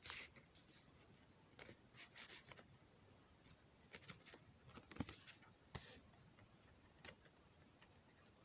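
Faint rustles and light taps from a stiff card envelope being handled, with a sharp tap about five seconds in.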